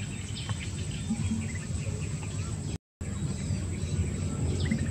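Outdoor rural ambience: scattered short bird chirps over a steady low rumble and a thin, steady high whine. The sound cuts out to silence for a moment just before three seconds in.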